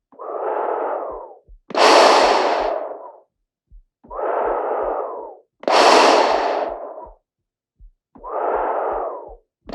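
A person breathing slowly through a gas mask: three in-and-out cycles, each pairing a duller, quieter breath with a louder, hissing one, each breath about a second and a half long. A short click comes just before several of the breaths.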